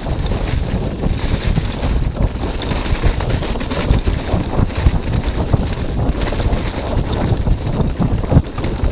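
Wind buffeting the camera microphone on a Chumba Stella hardtail mountain bike descending a leaf-covered dirt trail at speed, with frequent knocks and rattles from the bike as it runs over bumps.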